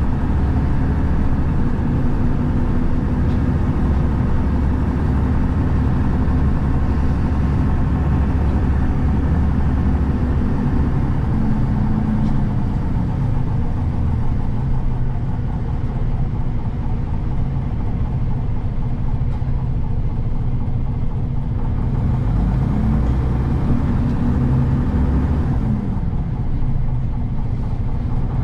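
Inside an Ikarus EAG E94 city bus on the move: the engine drones under a steady low rumble and road noise. Its note drops about halfway through, then climbs and falls again twice near the end.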